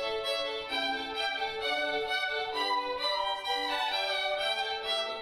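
A small ensemble of violins playing a classical melody in held, bowed notes.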